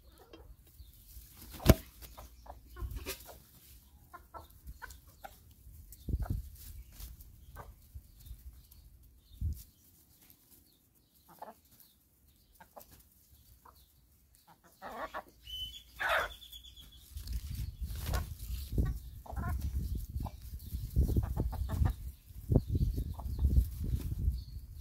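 Backyard hens clucking softly among themselves while pecking at food, with scattered short clicks and one loud sharp click near the start. About two-thirds through one hen gives a longer, higher call, and low rumbling fills the last third.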